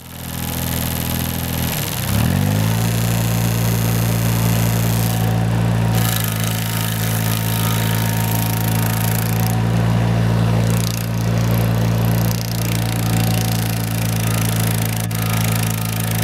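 Hydraulic stump grinder attachment running on its carrier machine's engine. It starts up abruptly, and its pitch dips briefly and recovers about two seconds in. It then runs steadily with a constant noisy whirr on top.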